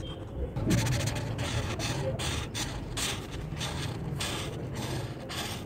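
Alcohol marker tip rubbing across paper in quick back-and-forth colouring strokes, a run of short scratchy swishes about two or three a second, over a steady low hum.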